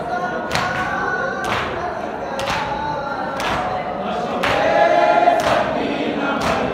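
Men chanting a Muharram nauha (lament) together, with chest-beating (matam), hands striking chests in unison about once a second to keep the beat.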